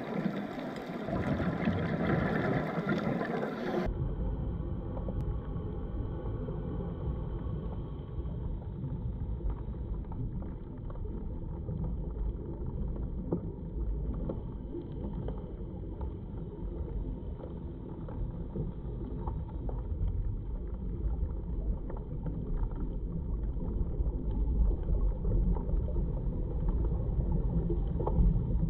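Muffled underwater ambience picked up through a camera's waterproof housing: a steady low rumble with scattered faint clicks. A brighter, hissier sound during the first four seconds stops abruptly.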